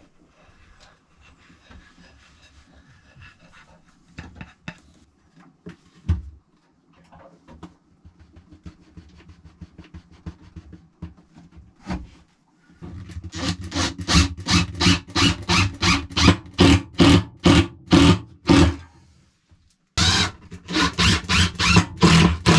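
Hand saw cutting wood in fast, rhythmic back-and-forth strokes, about three a second, in two runs with a short pause between them. Before that come light scattered knocks and clicks of wood being handled.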